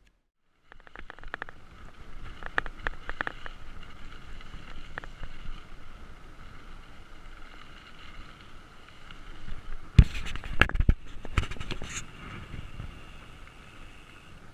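Mountain bike rolling over a rough, sandy dirt road, heard from a handlebar-mounted camera: steady tyre and wind noise with scattered rattling clicks from the bike. The sound cuts in after a brief moment of silence, and a cluster of loud knocks and rattles comes about ten to twelve seconds in as the bike jolts over bumps.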